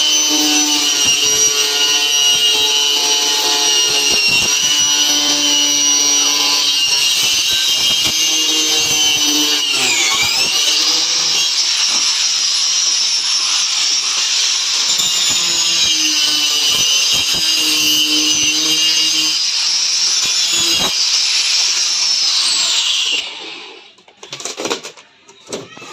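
Coofix CF-AG021 angle grinder running at full speed with a steady high whine while cutting; its pitch sags briefly about ten seconds in as the disc takes load, then it is switched off and winds down near the end, followed by a few light clicks.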